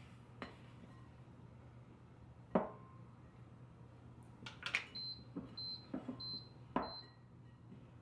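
Spoon and spatula knocking and scraping against a glass mixing bowl while shaggy dough is worked, with several sharp clicks, the loudest about two and a half seconds in. Four short high-pitched beeps come evenly spaced in the second half.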